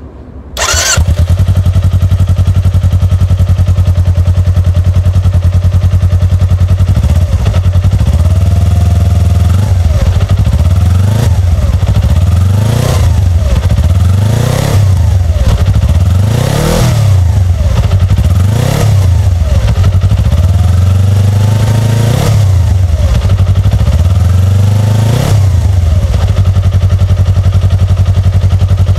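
2018 Kawasaki Ninja 250's parallel-twin engine through its stock factory exhaust. It fires up about half a second in and idles, then is revved in about eight quick blips that rise and fall back. Near the end it settles to a steady idle.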